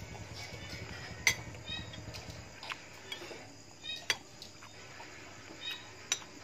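Metal spoon clinking against ceramic plates and a bowl while eating: three sharp clinks, about a second in, about four seconds in and near the end.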